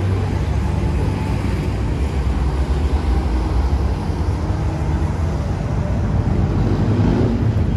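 Steady low rumble of city street traffic, engines and tyres blending into one continuous noise.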